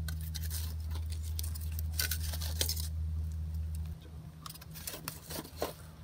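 Metal tongs clicking and scraping on a charcoal grill as a foil-wrapped fish is turned over, the foil crinkling, in irregular bursts. A low steady hum underneath stops about four seconds in.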